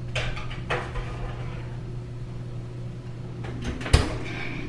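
Metal cake pans knocking and sliding on an oven's wire rack, a few sharp clicks, then the oven door shutting with a loud knock about four seconds in. A steady low hum runs underneath.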